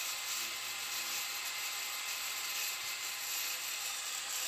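Small handheld angle grinder running steadily, its disc cutting into a plastic water inlet pipe.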